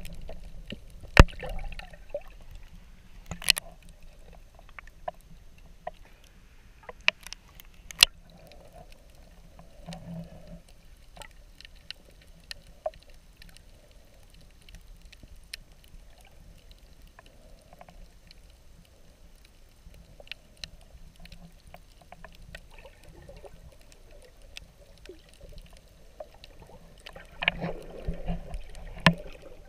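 Underwater ambience heard from below the surface: a low, muffled wash of water with scattered sharp clicks, the loudest about a second in and around three and a half and eight seconds in. Near the end, a short stretch of louder water movement.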